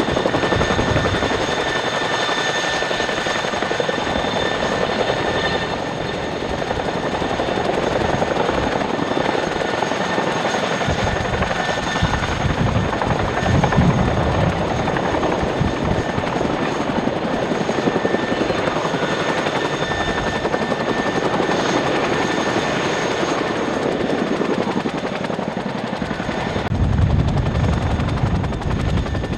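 CH-47 Chinook tandem-rotor helicopters running, one hovering and one turning its rotors on the ground. The sound is a steady rotor noise with the high whine of the turbine engines, and a low rumble swells near the end.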